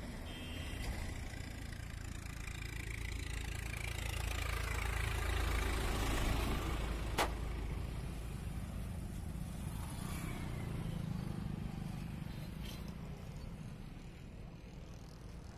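Highway traffic passing: a low engine rumble swells to its loudest about halfway through and falls away in pitch as a vehicle goes by, then a second, quieter vehicle hums past. A single sharp click comes just after the loudest pass.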